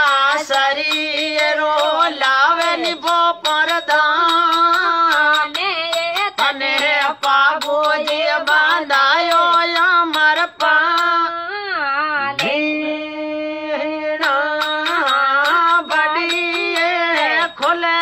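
Marwari folk music: a heavily ornamented melody over a steady drone, with frequent sharp percussive clicks and one long held note about two-thirds of the way through.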